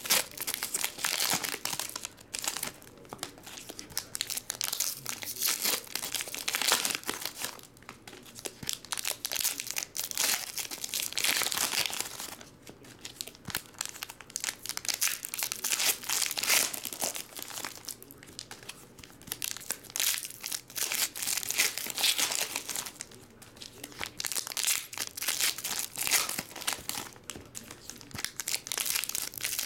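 Foil wrappers of Upper Deck Goodwin Champions trading card packs being peeled open and crinkled by hand, one pack after another, in repeated bursts of crackling with short pauses between them.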